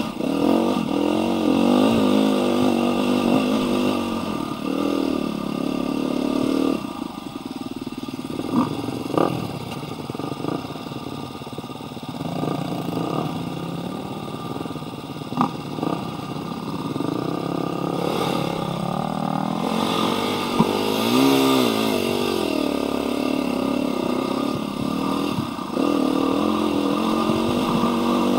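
Husqvarna dirt bike engine running under a rider, its pitch rising and falling as the throttle opens and closes, with a few sharp knocks.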